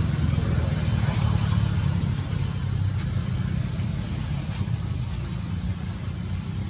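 Steady low rumble with a faint hiss above it, easing slightly past the middle.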